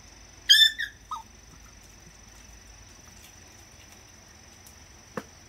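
A puppy gives one short, high-pitched squeal about half a second in, then a shorter, lower yip, while an adult Jindo dog mouths it in play. A faint steady high whine runs underneath, and a light knock comes near the end.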